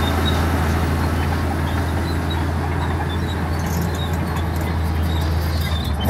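LiuGong crawler bulldozer running steadily under load: a low diesel drone with the clatter of its steel tracks and rock and soil grinding under the blade.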